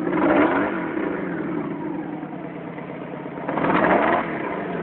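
Honda Magna V4 motorcycle engine running near idle and revving up briefly twice, near the start and about three and a half seconds in. The owner hears it missing on the number 2 cylinder, whose spark plug was fouled black.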